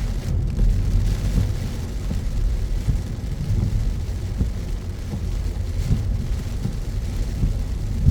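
Car driving through heavy rain: a steady low road rumble with a faint even hiss of rain and wet road above it.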